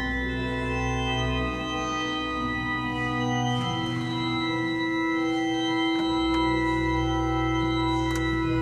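Pipe organ playing slow, sustained chords, with deep pedal notes that drop out for a couple of seconds in the middle.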